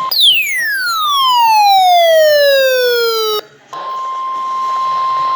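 Weather radio alarm: a loud electronic sweep that falls steadily in pitch for about three seconds and cuts off suddenly. After a short gap it gives way to the steady single 1050 Hz NOAA Weather Radio warning alarm tone.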